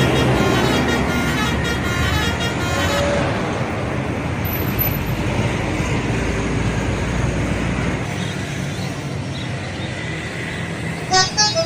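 Bus telolet horn playing a quick run of pulsing notes that fades out over the first three seconds, then bus engine and road noise with no horn. About eleven seconds in, another telolet horn starts a loud, rhythmic tune of short notes.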